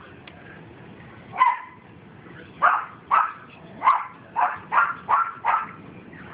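A dog barking: a single bark, then a run of about seven barks that come faster and closer together toward the end.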